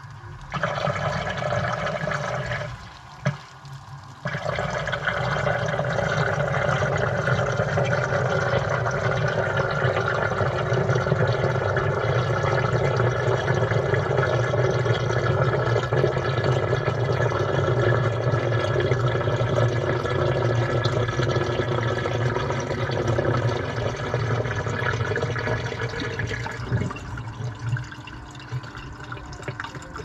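Water rushing and sloshing in a washing machine drum, heard from inside the drum. It stops for about a second and a half around three seconds in, then runs steadily and fades away near the end.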